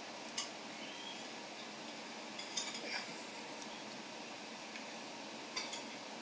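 Sharp clicks of a sulphur-crested cockatoo's beak biting into a hard sausage held in its foot: one click about half a second in, a quick run of clicks around the middle, and another pair near the end, over a steady hiss.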